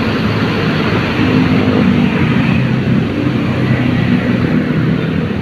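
Intercity coach's diesel engine pulling away, a loud, steady low drone that swells a little about a second in.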